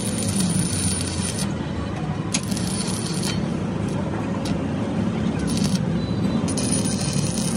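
Stick (arc) welding on a steel car wheel rim: the arc crackles and sizzles in spells, breaking off and restarting a few times, over a steady low hum. Metal rings are being welded around the wheel's stud holes, which have worn loose, to fill the gap.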